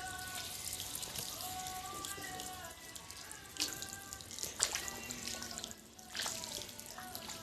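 Water splashing and pouring as a buffalo is washed, with a few louder splashes around the middle. A melody plays underneath.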